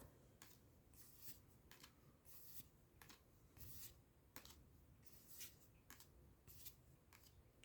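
Faint handling of trading cards from a freshly opened booster pack: short, soft card slides and flicks, about two a second, as the cards are gone through one by one.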